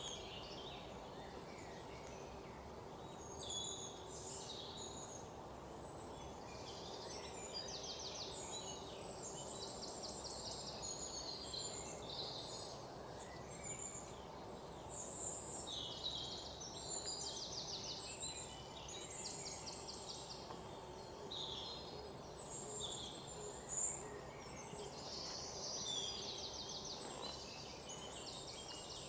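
Birds chirping and singing, with many short high calls and rapid trills coming every second or two, over a steady low background noise.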